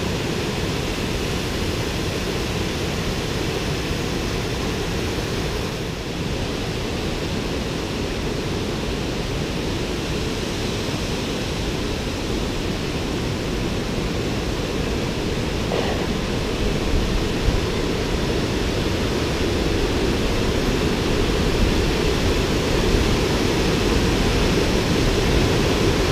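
Waterfall: a steady rush of falling water, growing a little louder over the last third.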